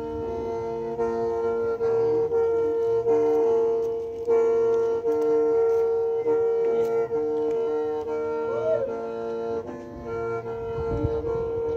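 Hmong qeej, a bamboo free-reed mouth organ, playing a tune over a steady held drone, its notes changing in steps about every half second to second.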